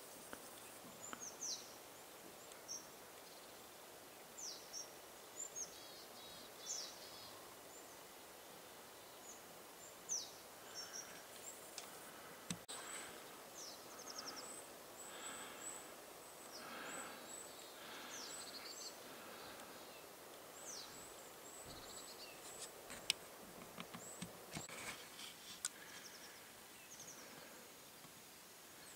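Small birds chirping faintly: many short, high calls scattered throughout, several sliding down in pitch, with the odd faint click.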